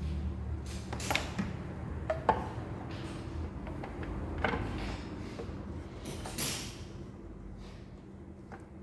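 Scattered clicks and metallic knocks from hand tools and engine parts being handled while the fuel injector rail is taken apart, over a steady low hum.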